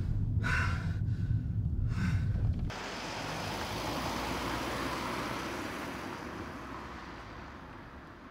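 Low engine rumble heard inside a moving car's cabin, with two short sharp breaths. About three seconds in it switches to a car heard from the street, its tyre and engine noise swelling and then slowly fading as it drives away.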